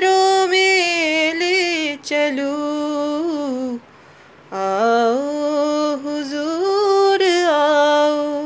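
A woman singing a Hindi film song unaccompanied, holding long notes with vibrato in two phrases separated by a short breath about four seconds in; the last phrase ends on a falling, sustained note.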